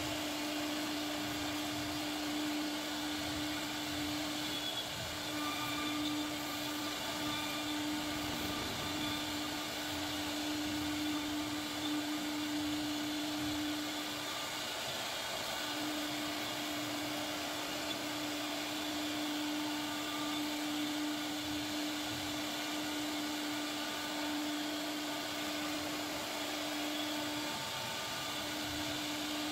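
CNC router spindle running at a steady high pitch as its bit carves relief into a wooden panel, with a hiss of cutting over it. The tone breaks off briefly three times, about five seconds in, around fifteen seconds and near the end.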